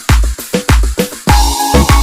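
Background dance music with a steady, deep kick-drum beat; a held synth note comes in a little past halfway.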